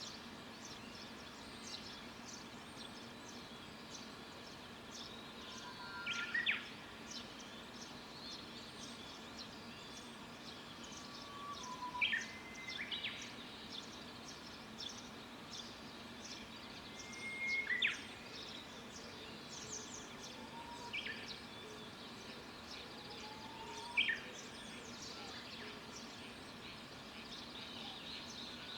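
Birds singing in the countryside: one bird repeats the same loud phrase about every six seconds, a low whistle followed by quick falling notes. Many small, high chirps from other birds run through it over a faint steady background.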